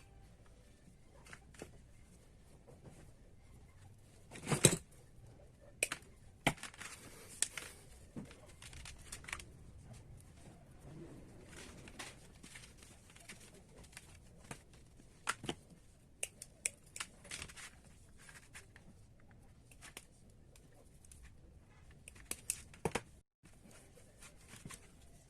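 Scattered clicks, taps and short rustles from small parts and tools being handled on a workbench, the loudest click about four and a half seconds in; no motor running.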